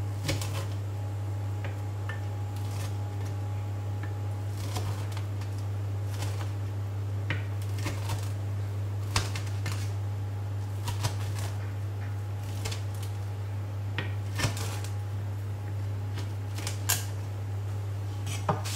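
A sharp knife pressing down through a baked, crisp sesame and chia seed cracker sheet, giving short crunches and knocks every second or two at an uneven pace, over a steady low hum.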